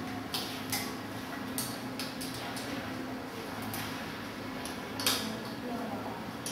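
Small irregular clicks and light knocks of metal and plastic parts being handled and fitted on a bicycle handlebar, one louder knock about five seconds in, over a steady low hum.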